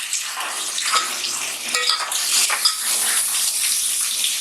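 Browned mutton pieces tipped into a pan of hot oil with frying onion and spice paste: a steady sizzle, with a few metal clinks and knocks of utensils against the pan.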